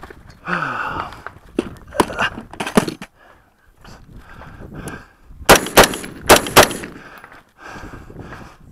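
Custom AR-15 rifle with a SureFire ProComp muzzle brake firing four rapid shots in just over a second, a little past the middle. Before the shots there is lighter clatter and knocking as the rifle is handled.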